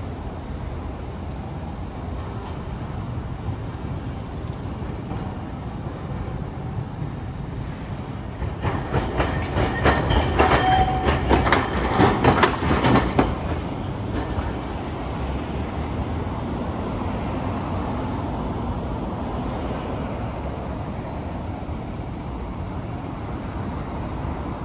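Steady street traffic noise, with a Nagasaki Electric Tramway streetcar passing about a third of the way in. For around five seconds its wheels clack over rail joints, with a brief high tone in the middle, before the traffic noise takes over again.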